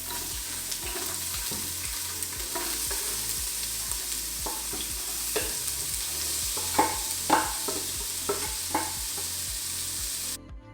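Chopped onions and jalapeños sizzling in hot olive oil in an Instant Pot on high sauté, with a utensil stirring them and knocking against the pot several times in the second half. The sizzle cuts off abruptly near the end.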